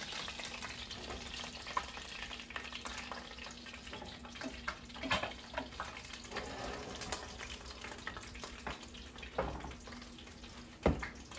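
Chuck roast sizzling as it sears in hot oil in a skillet, the sizzle slowly fading. A few sharp clicks and knocks of tongs against the pans come through it.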